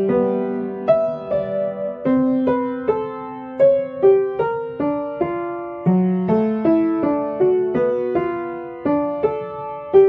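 Background piano music: a melody of single notes, each ringing and fading.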